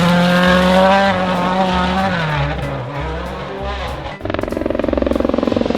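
Rally car engine revving hard, its pitch dropping after about two seconds, then a rasping high-revving run from about four seconds in. Music with a steady low beat plays underneath.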